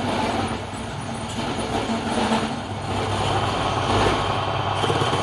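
An engine or motor running steadily with a constant low hum.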